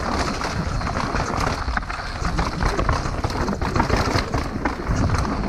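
Mountain bike riding fast down a dirt trail: tyres rolling over dirt and rocks and the bike rattling with constant irregular clatter, over a steady wind rumble on the microphone.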